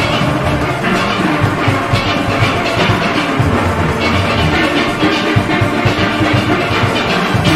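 Steel orchestra playing: many steelpans sounding together over a steady drum and percussion beat.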